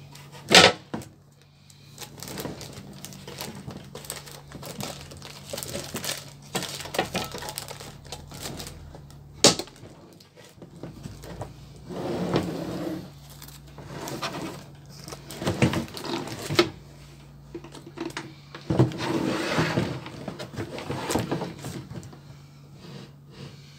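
Toaster grill being handled: plastic film on its plates crinkling in several bursts, with sharp clicks and knocks of the plastic housing and hinged lid. The loudest are a knock just after the start and a snap about nine and a half seconds in. A faint steady low hum runs underneath.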